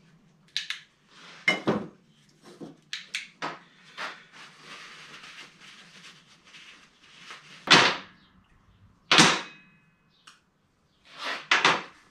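Metal parts knocking and clinking as they are handled and set down on a workbench: a string of separate knocks, the loudest two about eight and nine seconds in, the second leaving a short metallic ring.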